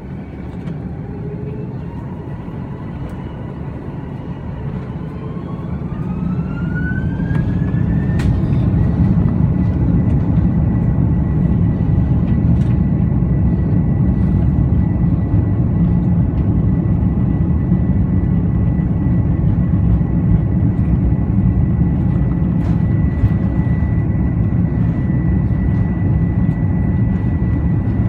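Airbus A330-300's twin jet engines spooling up to takeoff thrust, heard from inside the cabin. Whines glide upward over the first eight seconds or so as the noise grows, then settle into a steady high whine over a loud, even rumble as the takeoff roll begins.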